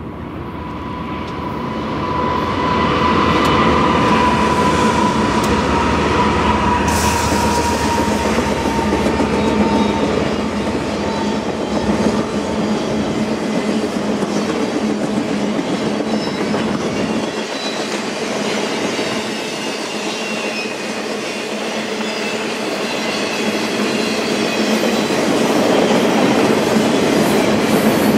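BNSF freight train rolling past, loud and steady once it draws level after the first few seconds. A single high whine sounds through the first ten seconds or so, sliding slightly lower. The deep rumble drops away about two-thirds of the way through while the rolling noise of the cars carries on.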